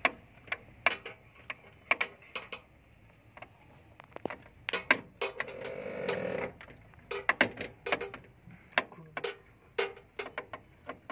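Small screwdriver clicking and scraping against the terminal screws of a panel-mounted voltage protection relay as they are loosened to remove the faulty relay: irregular sharp clicks, with a brief rubbing noise about six seconds in.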